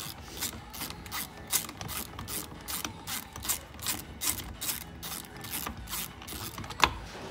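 Socket ratchet clicking steadily, about two to three clicks a second, as the 19 mm steering-wheel nut is wound off. One louder click comes near the end.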